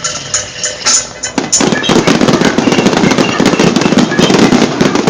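Show music with a steady beat, then about a second and a half in a dense barrage of fireworks bursts and crackling starts and takes over.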